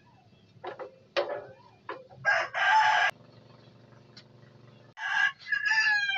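A rooster crowing twice, loud and drawn out: the first crow stops abruptly, and the second falls in pitch at its end. A few sharp clicks come before the first crow.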